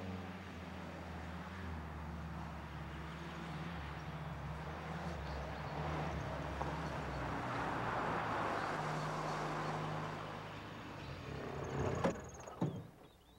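Military jeep engine running as it drives up, louder about eight seconds in. Near the end come two sharp knocks and the engine sound dies away.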